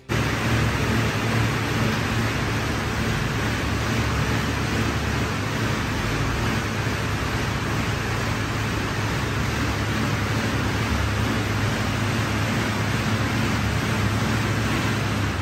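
Air bike's fan wheel whooshing steadily as it is pedalled hard, a loud even rush of air over a low hum.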